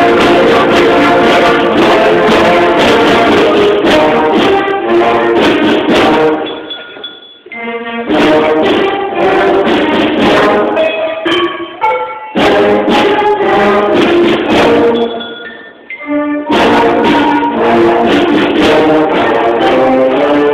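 Middle school concert band playing a Christmas tune: brass and woodwinds over sharp percussion strokes. Twice, about seven and sixteen seconds in, the full band drops back briefly to a few quieter instruments before coming in loud again.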